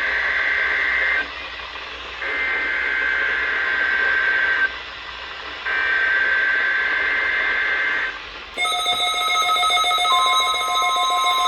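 NOAA Weather Radio SAME data bursts for a required weekly test: three buzzy digital tone bursts of about two and a half seconds each, a second apart. At about eight and a half seconds a loud steady alert of several held tones begins, and the 1050 Hz weather-radio warning alarm tone joins it about a second and a half later.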